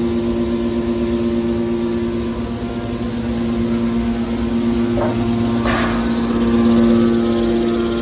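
Hydraulic metal baler's electric motor and pump running with a steady hum, with two short knocks about five seconds in.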